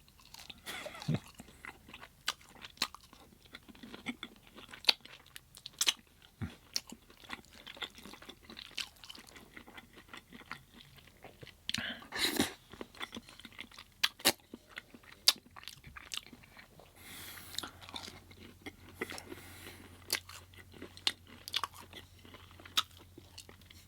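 Close-up eating sounds: crunching and chewing of air-fried breaded plant-based chicken nuggets, with irregular sharp mouth clicks and smacks.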